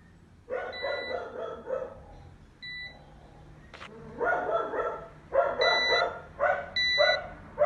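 A dog barks repeatedly, the loudest sound. Four short beeps from a multimeter's continuity tester sound among the barks, showing that the Peltier module is shorted.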